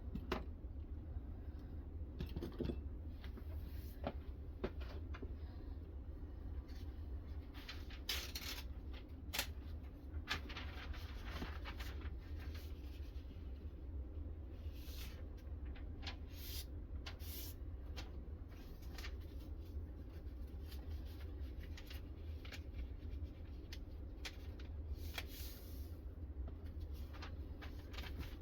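A freshly sharpened kitchen knife being tested for sharpness by hand: a few short rustling, slicing strokes and scattered light clicks and taps, over a steady low hum.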